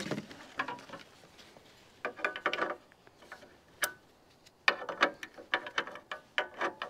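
Tie-down strap being cinched over a fuel can in its holder, its ratchet buckle clicking as it is tightened: a few clicks and rattles about two seconds in, one sharp click, then an uneven run of clicks in the second half.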